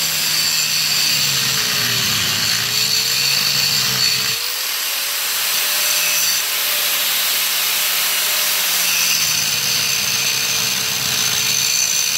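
Angle grinder with a cutting disc cutting through a steel bolt that holds a school bus seat leg to the floor. It runs steadily with a hissing grind, and its whine drops in pitch and recovers a few times as the disc bites into the bolt.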